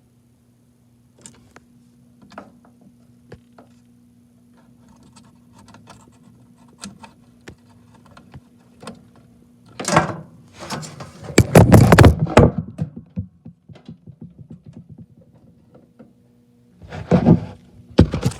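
Clicks, knocks and clattering from hands working with tools and metal parts on a furnace, loudest about ten to twelve seconds in and again near the end, over a faint steady electrical hum.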